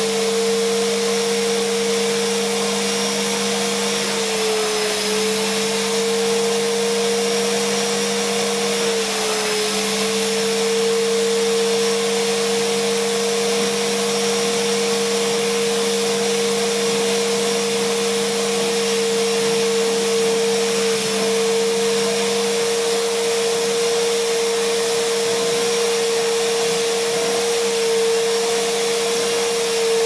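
Numatic George wet-and-dry vacuum running steadily while its hand tool is worked back and forth over a wet stain on carpet. Its steady whine dips slightly in pitch twice, about four and nine seconds in.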